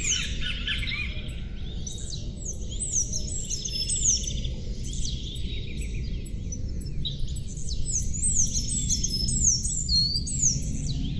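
Several songbirds chirping and singing, with repeated quick down-sweeping whistles and trills, over a steady low background rumble.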